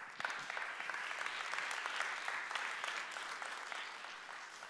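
Audience applauding, the clapping holding steady for about three seconds and then dying down toward the end.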